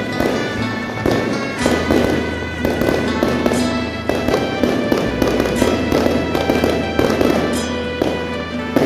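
Rapid firecracker crackling in dense clumps over loud, continuous festive music with a steady bass line.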